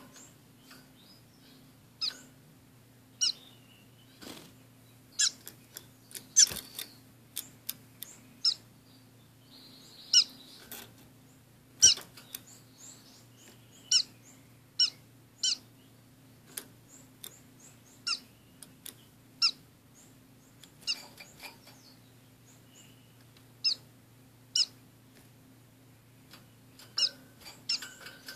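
Caged orange-cheeked waxbills and a society finch giving short, high call notes, roughly one a second at an irregular pace, with a couple of sharper clicks among them.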